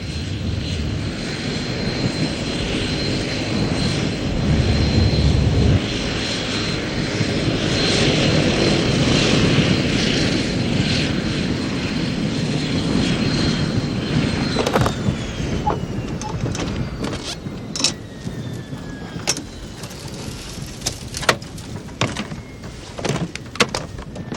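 Aircraft engine running with a steady high whine, then winding down about fourteen seconds in, the whine sliding down in pitch as the engine is shut down after landing. Scattered clicks and knocks follow as the engine dies away.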